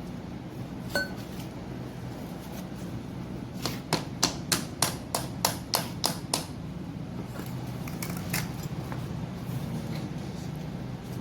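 Hand tools working on metal compressor parts during disassembly. One metallic clink rings briefly about a second in, then comes a quick run of about ten sharp taps on metal at around four a second, and a few lighter clicks follow, all over a steady low hum.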